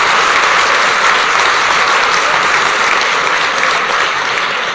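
Large audience applauding steadily: many hands clapping at once.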